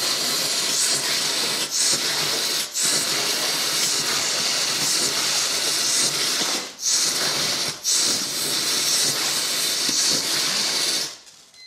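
Short pieces of visco fuse, lit one after another by Talon firework igniters, burning with a continuous hissing spray of sparks. There are a few brief gaps, and the sound cuts off suddenly about eleven seconds in.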